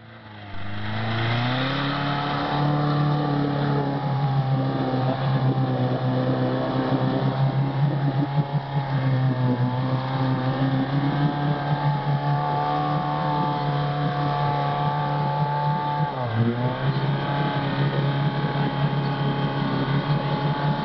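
Lada Niva's engine running at steady high revs under load as the 4x4 pushes through mud. The revs climb over the first couple of seconds, hold, then dip briefly and pick up again about sixteen seconds in.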